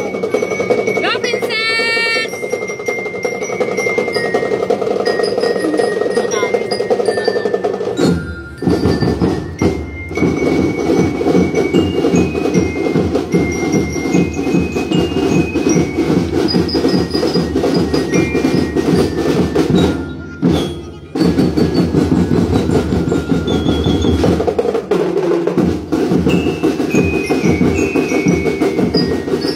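Drum and lyre band playing: bell lyres pick out a melody over a steady beat of drums. The music dips briefly a few times, about eight, ten and twenty seconds in.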